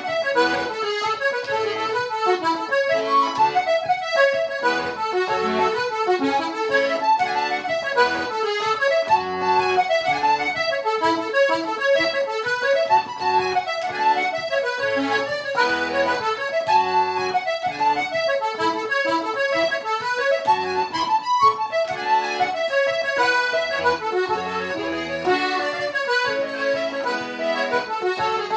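Solo button accordion playing an Irish jig: a continuous run of quick melody notes over low bass notes, with no pauses.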